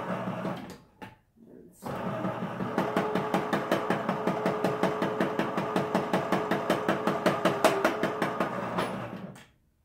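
Electric can opener cutting around a can of black beans: a steady motor hum with rapid even ticking, about six ticks a second. It stops briefly about a second in, then runs again and stops near the end.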